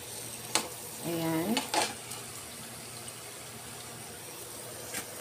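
Cooking oil sizzling steadily in a frying pan as cheese-filled tikoy turon fry in it, with a few light clicks: one about half a second in, one near two seconds and one near the end.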